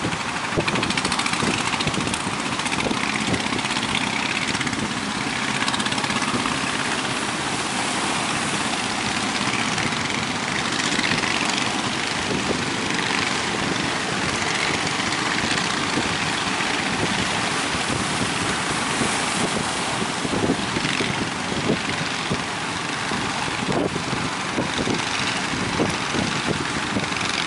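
Fishing boat engine running steadily under a constant rush of wind and water.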